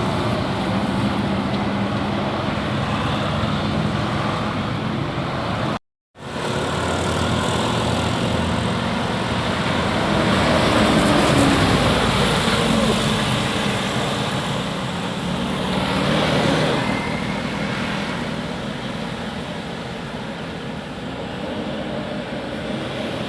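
Road traffic passing: the steady noise of engines and tyres, swelling and fading as vehicles go by. The sound cuts out completely for a moment about six seconds in.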